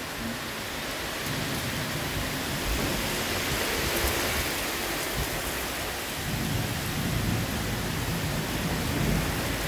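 Heavy rain pouring down steadily in a thunderstorm, with low rumbles of thunder swelling about a second in and again in the second half.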